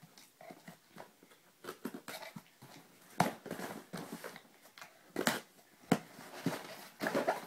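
A shipping package being opened by hand: irregular scraping and rustling of cardboard and packing, with a few sharp snaps, the loudest about three and five seconds in.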